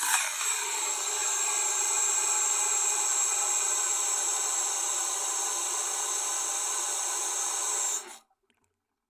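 A small electric motor running with a steady whir and a high whine, starting abruptly and cutting off about eight seconds in.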